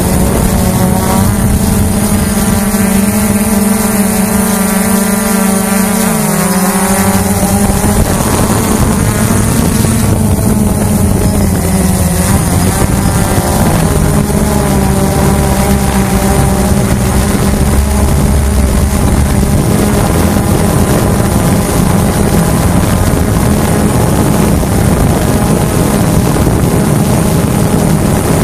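Hubsan H109S quadcopter's motors and propellers whining in flight, heard from the drone itself; the whine is loud and steady, with its pitch shifting several times as the drone manoeuvres.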